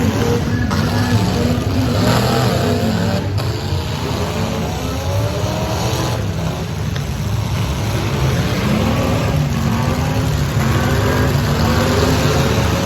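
Demolition derby cars' engines revving hard, several at once, their pitches rising and falling over one another without a break.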